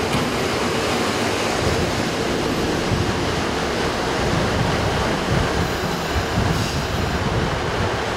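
Aizu Railway KiHa 8500 series diesel railcar pulling into the platform and running past close by, a steady loud noise of the train in motion.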